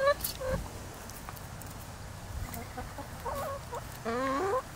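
Backyard hens clucking and calling as they feed on cantaloupe: a drawn-out call at the very start, a few short clucks through the middle, and a rising, drawn-out call near the end.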